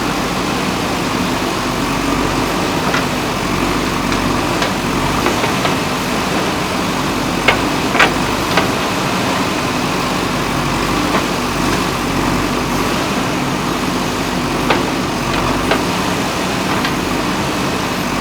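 JCB backhoe loader's diesel engine running steadily, with sharp knocks now and then, the loudest a pair about eight seconds in.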